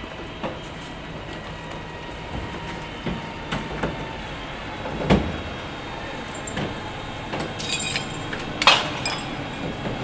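Train ambience: a steady rumble with irregular clacks and knocks. The loudest knock comes about five seconds in and another strong one near the end, with a short hiss just before it.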